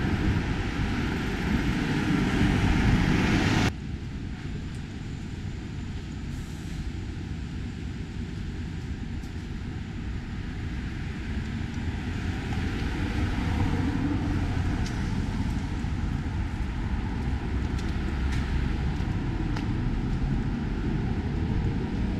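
City street traffic: vehicle and road noise, loud for the first few seconds, then dropping suddenly to a lower, steady level that swells a little midway.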